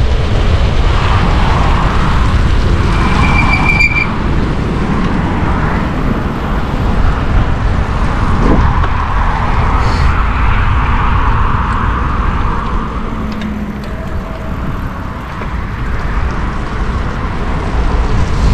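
Wind buffeting the microphone with road and traffic noise while riding a Stromer ST2 speed pedelec at speed. A short high beep sounds about four seconds in.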